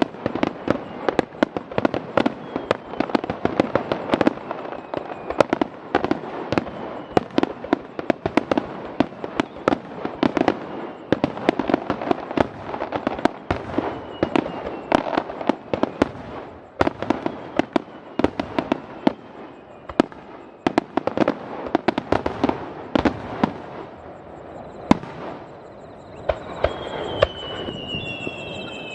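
A dense, rapid barrage of aerial fireworks bursting one after another, with overlapping bangs and crackle, thinning out near the end, where a whistle falls in pitch.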